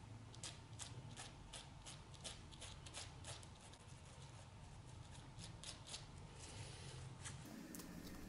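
Bird-feather quill pen scratching and tapping on a painted surface in quick, irregular, faint strokes, over a low hum.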